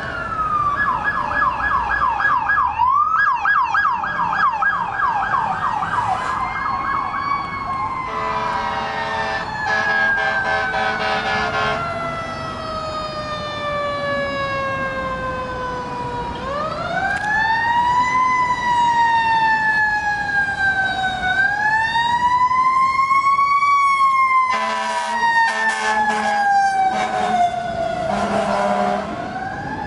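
Emergency vehicle sirens, a fire engine among them: a fast yelp for the first several seconds, then a slow wail rising and falling. Horn blasts in quick pulses cut in twice, about a third of the way in and again near the end as the fire engine passes.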